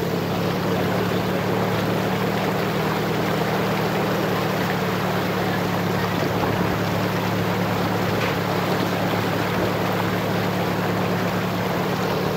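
Off-road jeep's engine running steadily at low speed as it wades axle-deep through floodwater, under a constant rush and slosh of water against the vehicle.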